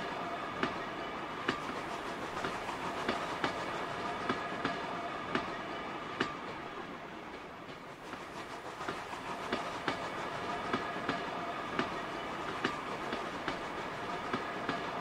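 A 7mm O gauge model freight train rolling on Peco set track: sharp clicks, about one or two a second, as the wagon wheels cross the rail joints, over a steady whine and rolling noise from the running gear. The sound dips briefly about halfway.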